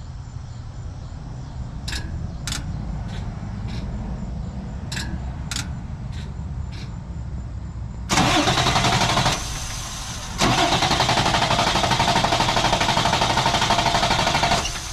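Starter cranking a Cummins 6.7 L ISB diesel in a 2016 International 4300 in two goes: a short crank of about a second, then after a pause a longer pulsing crank of about four and a half seconds, with the engine not catching. The fuel system has not yet been primed after the fuel filters were changed. Before the cranking there is only a low steady hum with a few sharp clicks.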